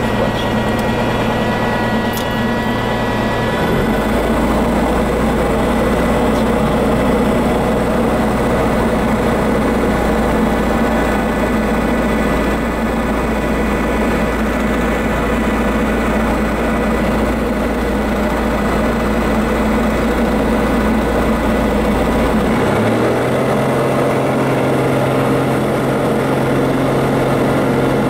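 Diamond DA40 single-engine propeller plane's engine running steadily at low power while taxiing, heard from inside the cockpit. Its low hum shifts in pitch about four seconds in and again near the end.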